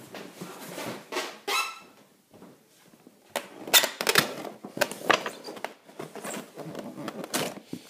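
Cardboard shipping box being handled and unpacked: scattered rustles, scrapes and knocks, with a short high squeak about a second and a half in and a busier run of knocks and rustling from about three seconds on.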